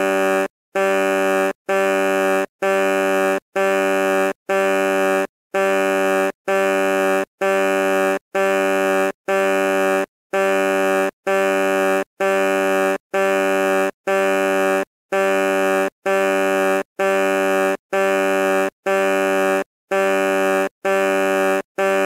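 Truck horn sounding in a long, even series of short blasts, one steady note each, about one a second with a brief gap between them and a slightly longer pause every five seconds or so.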